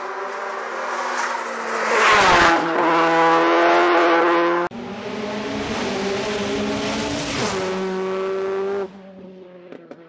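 Skoda Fabia rally car's turbocharged four-cylinder engine at full throttle, passing close by with a drop in pitch about two seconds in. After a sudden cut, a second high-revving pass also drops in pitch and cuts off abruptly near the end.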